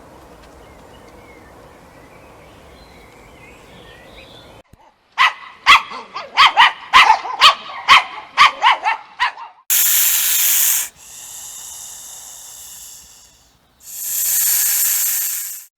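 A dog barking in a fast run of about a dozen barks, followed by three loud hisses, the last two longer.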